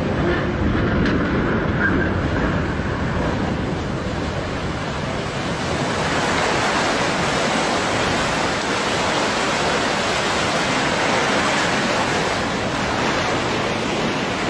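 Launch wave from a ship launched sideways into a river, churning water rushing along and washing over the bank in a steady loud surge that grows fuller and hissier about halfway through.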